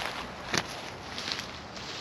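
Footsteps and rustling, with a single sharp knock about half a second in.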